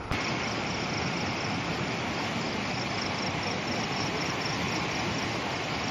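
Floodwater rushing in a fast, churning current: a steady, even rush of water.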